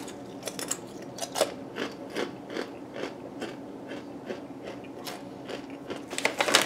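A thick Doritos Jacked tortilla chip being bitten and chewed, a steady run of crisp crunches about three a second.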